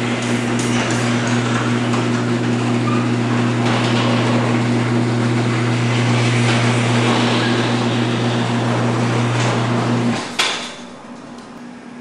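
Electric garage door opener raising a sectional garage door, its motor humming steadily under a clattering rattle of the door moving up the tracks; it cuts off with a clunk about ten seconds in as the door reaches fully open. This is the test run of the door on its newly replaced extension spring and safety cable.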